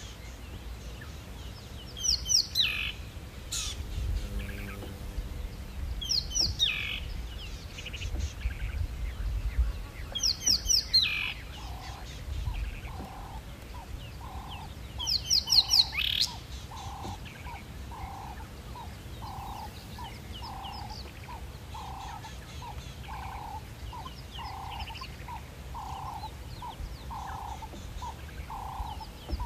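Wild birds calling: loud bursts of fast, falling chirps about every four seconds, and from about twelve seconds in a steady series of short, even notes, roughly three every two seconds. A low rumble lies underneath in the first half.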